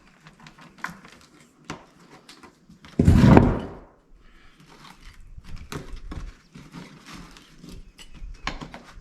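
Scattered knocks and clicks of work on a door frame and floor, with one loud thud and scrape about three seconds in.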